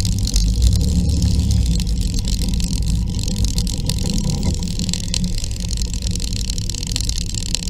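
Motor scooter engines running: a steady low rumble of a scooter's engine close by, with other scooters of a ride-out and traffic passing, and a hiss of wind and road noise.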